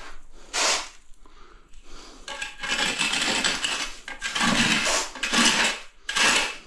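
A trowel scraping filler across old floor tile in a series of rough strokes, each about half a second to a second and a half long, with short pauses between them.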